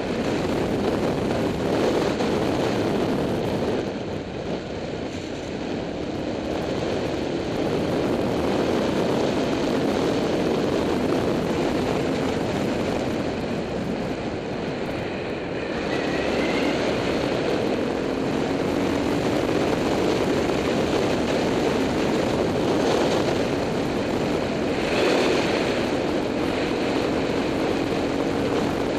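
Motorcycle engine running under way, mixed with steady wind rush over the bike-mounted action camera's microphone. The engine note rises in pitch now and then as the bike accelerates.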